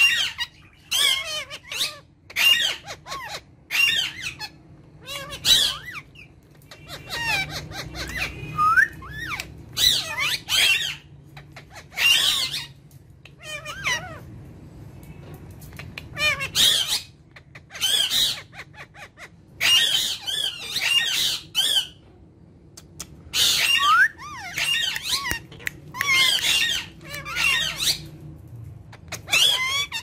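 Indian ringneck parakeets squawking and chattering in short calls with quickly bending pitch, about one a second, with a few seconds' pause midway.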